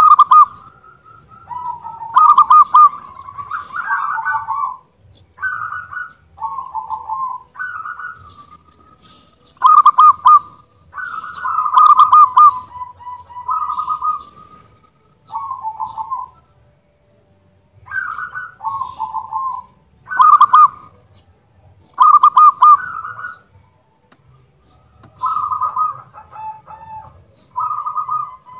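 Zebra dove (perkutut) cooing loudly: a series of short, rapidly pulsed coo phrases, each half a second to two seconds long, repeated with brief pauses between them.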